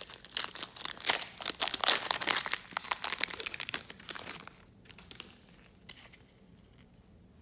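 Foil trading-card pack being torn open and crinkled, a dense crackling that runs for about four and a half seconds, then drops to a few faint rustles.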